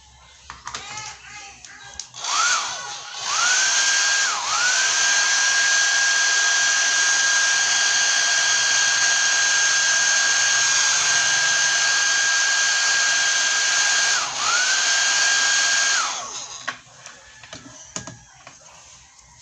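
A small high-speed electric motor tool spins up to a steady high whine with a rushing airflow-like noise. About two seconds in it dips briefly and rises again, then runs steady for about ten seconds, dips and spins back up once more, and shuts off near the end. Light handling clicks and rubbing follow.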